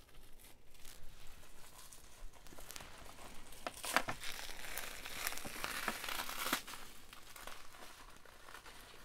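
Packing wrap being crumpled and pulled open by hand: a busy run of crinkling and crackling with a few sharper snaps near the middle.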